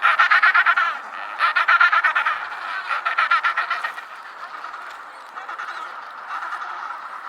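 Penguins calling in a colony: three loud, rapidly pulsed calls of about a second each, then quieter overlapping calls from several birds.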